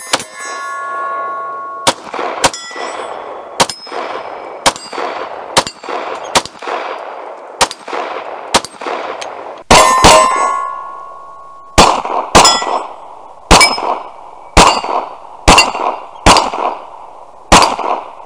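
A CZ P10 C 9mm pistol firing about twenty shots of hand-cast 135-grain reloads in uneven strings, some shots close together in pairs and triplets. The shots are mixed with the clang of bullets hitting a small steel plate target, which rings on after several hits.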